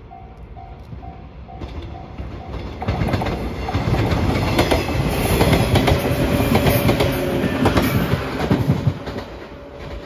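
Level crossing bell ringing about twice a second, then a JR 115 series electric train passes close by, its wheels clacking over the rail joints; the pass is loudest in the middle and fades near the end as the train moves away.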